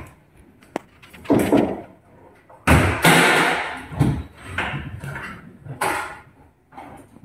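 Aluminum kitchen wall cabinet doors being opened and swung shut one after another: a click, then a series of knocks and thuds, the loudest a little under three seconds in.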